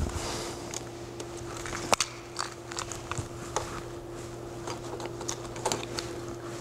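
Scattered small clicks, knocks and rustles of a slide projector being handled and moved, over a steady electrical hum.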